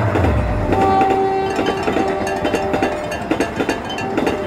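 Passenger train passing close by. The diesel-electric locomotive's low engine drone drops in pitch and fades in the first moments, then the coaches' wheels clack over rail joints in quick, uneven series, with a steady high tone through the middle.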